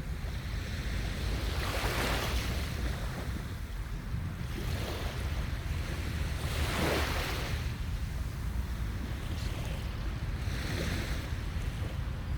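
Sea waves breaking and washing onto a beach in several surges, over a steady rumble of wind on the microphone.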